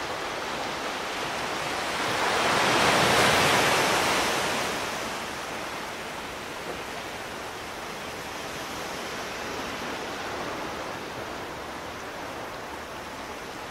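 Ocean surf on a beach: a wave swells and washes in about two to five seconds in, then a steady hiss of surf continues.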